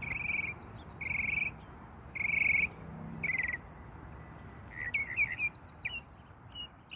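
Birds calling: a half-second buzzy, pulsed call repeated about once a second, then shorter, quicker chirps from about five seconds in, over a steady outdoor background hiss.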